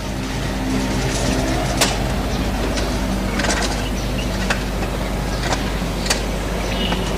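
Steady low mains hum and hiss of an old, worn lecture recording, with scattered sharp clicks. A man's voice sits faintly beneath the noise.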